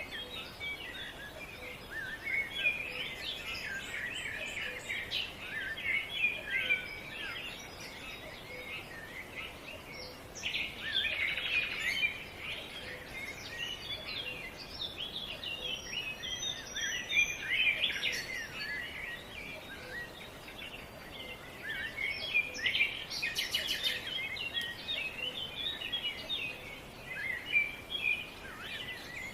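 Many small birds singing and chirping together, a dense overlapping chorus of quick high notes and trills with no pause, over a faint steady outdoor background.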